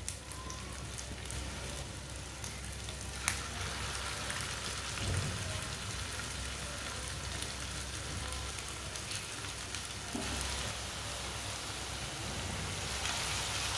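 Hot oil sizzling steadily around raw grated-potato kabab patties shallow-frying in a frying pan, with one sharp click about three seconds in. The sizzle gets a little louder toward the end as more patties go into the oil.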